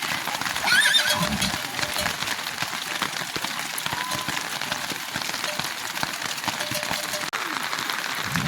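Heavy rain falling steadily, with a patter of drops, on a mountain village. About a second in, a brief wavering high-pitched call sounds over it.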